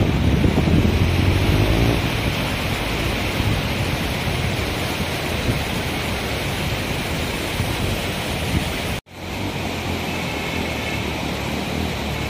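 Steady rushing of a mountain river, with a road motorcycle's engine running over it in the first couple of seconds before fading into the water noise. The sound drops out sharply for a moment about nine seconds in.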